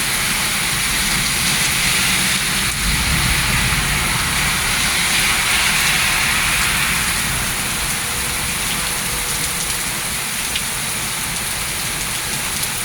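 Heavy rain pouring down in a steady hiss, with a louder rushing swell from about two to seven seconds in.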